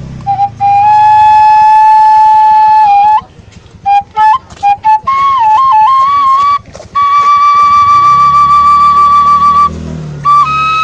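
Sundanese bamboo suling, an end-blown bamboo flute, played solo: a slow melody of long held notes with short quick notes and small dipping ornaments between them, broken by brief pauses for breath.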